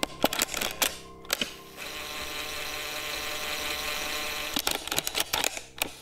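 A run of sharp mechanical clicks and clacks, then a steady hum for about three seconds, then another quick cluster of clicks.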